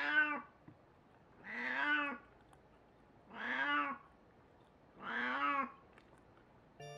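An elderly white cat meowing loudly four times, one call every one and a half to two seconds, each rising and then falling in pitch. The vet takes loud meowing like this as abnormal behaviour, a sign of the cat's dementia.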